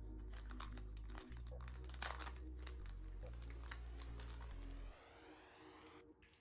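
Plastic packaging crinkling and rustling as character goods are unwrapped, loudest about two seconds in and fading near the end, over background music with a stepping bass line.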